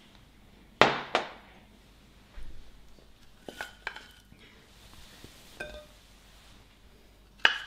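Clinks and knocks of a frying pan, serving utensil and china plates as food is served from the pan: two sharp knocks about a second in, lighter ringing clinks a little later, and one more sharp knock near the end.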